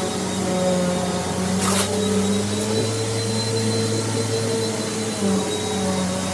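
Mainstays upright vacuum cleaner running steadily, its motor humming, with a brief burst of hiss about a second and a half in.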